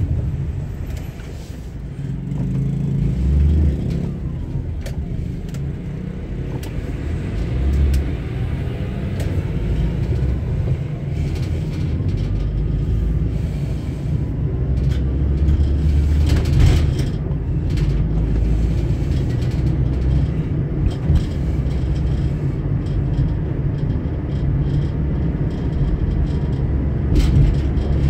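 Car being driven along a town road: a steady low rumble of engine and tyres, with a few brief knocks.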